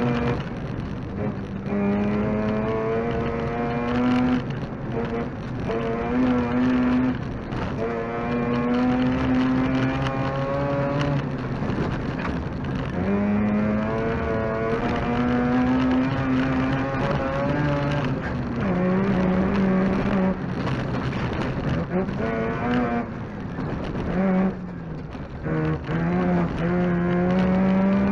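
Mazda RX2 rally car's rotary engine revving hard from inside the cabin. The note climbs steadily through the gears and drops sharply several times at gear changes and lifts.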